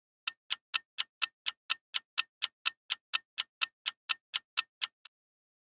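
Clock-ticking sound effect for a countdown timer: about twenty sharp, even ticks at roughly four a second, stopping about five seconds in with a last faint tick.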